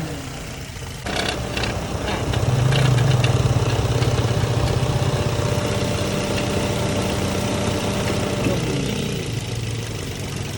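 Perodua Myvi engine running near idle, its note shifting and getting louder for a few seconds, with short chirps from the drive belt about a second in. The belt is slipping as it dries after being wetted: a worn or loose belt.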